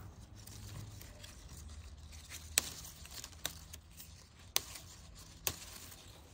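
Bay leaves being snapped off a bay laurel branch by hand: four sharp snaps about a second apart.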